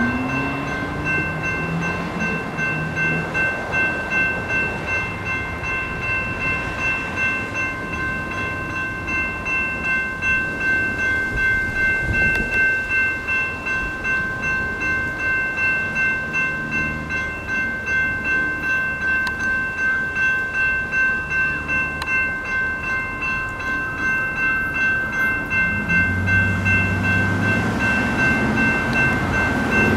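General Signals Type 2 electronic crossing bell ringing steadily at an active railroad crossing, about one and a half strokes a second, each stroke a bright metallic tone. A low rumble builds underneath near the end.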